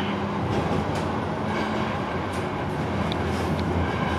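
Tram running along street rails, heard from inside the car near the driver's cab: a steady low rumble with a few faint light clicks.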